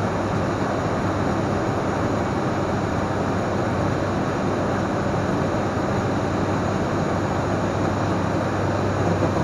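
Steady drone of the ATR 42-500's twin Pratt & Whitney PW127 turboprop engines and propellers, heard inside the cockpit as an even rushing noise with a low hum underneath.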